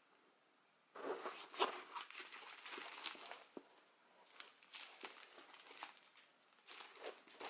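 Clear plastic film crinkling and rustling in irregular bursts as a rolled diamond-painting canvas is handled, starting about a second in, with a few sharp crackles.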